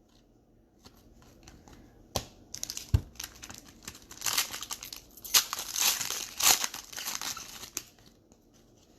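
A trading-card pack wrapper crinkling as it is handled and opened, in several loud bursts through the middle, with two sharp knocks about two and three seconds in.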